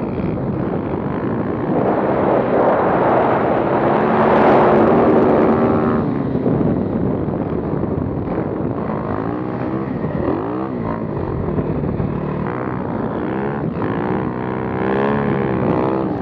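Snow bike's motorcycle engine running under load, its pitch rising and falling again and again as the throttle is worked, under heavy wind rush on the helmet camera's microphone. The wind rush is loudest from about two to six seconds in.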